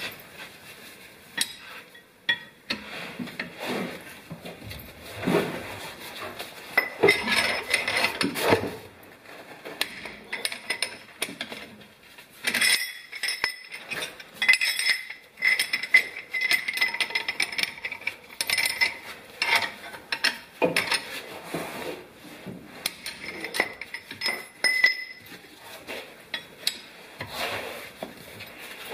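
Metal hand tools clinking and scraping irregularly, with some ringing clinks, as a 10 mm Allen key is worked on the drain and fill plugs of a Subaru rear differential.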